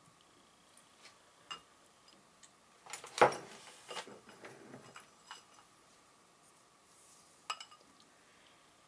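Paintbrushes and small glass dishes of paint handled on a tabletop: a few light clicks, a louder clink with a short rattle about three seconds in, and another click near the end.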